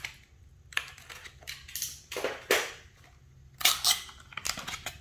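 A small stylus box being opened by hand: an irregular run of sharp clicks, scrapes and rustles of packaging as it is pulled apart, with the loudest snaps about halfway through and again shortly after.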